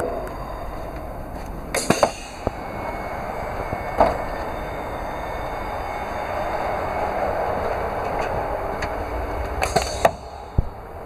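Steady running noise of a TGV EuroDuplex double-deck high-speed train in motion, heard from its vestibule and gangway. Sharp clicks and knocks come about two seconds in, at four seconds and again near the end.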